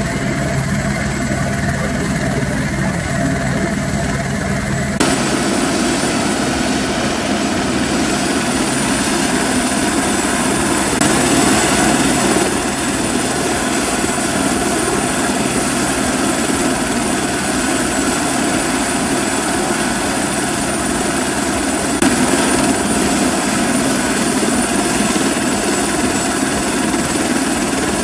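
Helicopter running on the ground with its rotor turning, giving a steady, loud engine and rotor noise. The sound changes abruptly about five seconds in.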